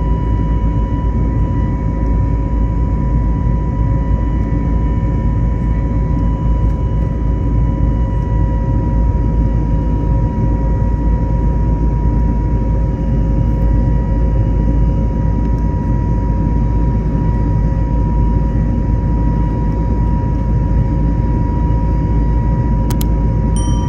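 Steady cabin noise inside an Airbus A321neo airliner: the constant low rumble of the jet engines and rushing air, with a steady thin whine above it. There is a short high click near the end.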